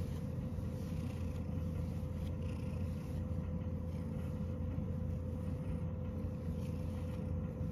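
Domestic cat purring steadily, a low continuous rumble, while being stroked on the head.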